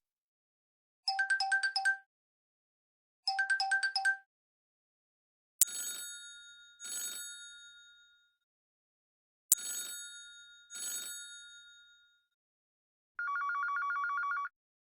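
Honor 8A smartphone ringtones playing one after another: first a short, fast-warbling electronic ring heard twice, then a bell-like chime of two struck notes that ring out and fade, heard twice, then a steady trilling buzz near the end.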